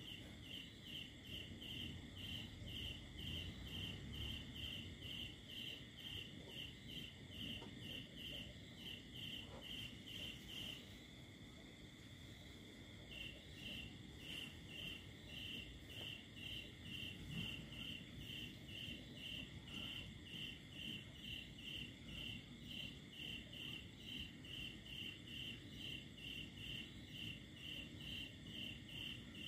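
Crickets chirping: a steady run of high chirps at about two a second, pausing for about two seconds roughly eleven seconds in, then resuming, over a continuous high trill.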